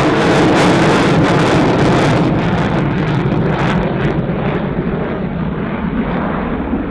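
Dassault Rafale fighter's twin Snecma M88 jet engines in afterburner as it pulls up: a loud jet roar with crackle. The roar grows duller and fainter after about four seconds as the jet climbs away.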